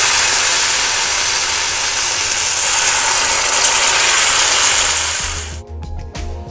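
Rice-and-vegetable chilla batter sizzling in hot oil in a frying pan, a loud steady hiss of freshly poured batter frying. It cuts off suddenly about five and a half seconds in, and background music with light ticking beats takes over.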